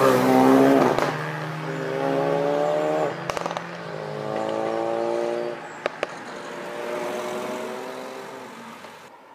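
Ford Focus hatchbacks driven hard past: an engine note drops in pitch as one goes by, then climbs three times in turn as the engine is revved up through the gears. There are two sharp cracks a few seconds in, and the sound fades near the end.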